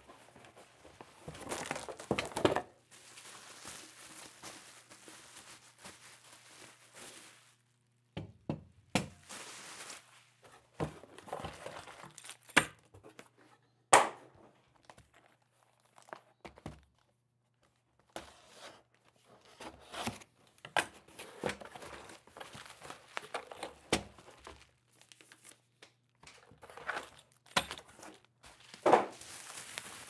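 Packaging being handled by hand while a rack cable-management duct is unboxed: cardboard box rustling and scraping, and plastic wrapping crinkling, broken by irregular knocks of the box and metal duct against the table. One louder knock comes about halfway through.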